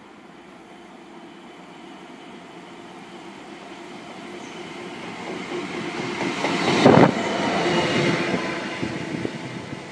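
Class 66 diesel-electric locomotive, with its EMD two-stroke V12 engine, approaching and passing close by. Its engine note grows steadily louder to a peak about seven seconds in, then fades as it moves away.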